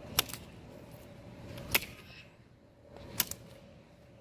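Three sharp clicks, about one and a half seconds apart, over a faint background hum.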